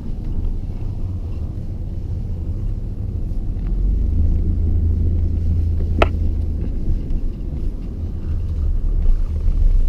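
2003 Chevy S10 ZR2 pickup driving through deep snow in four-wheel drive: a steady low engine and drivetrain rumble, with one sharp click about six seconds in.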